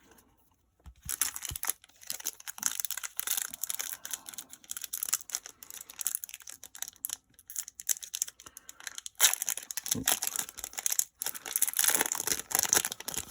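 Foil wrapper of a Pokémon booster pack crinkling and tearing as it is opened, in fits and starts after a quiet first second and loudest in the last few seconds.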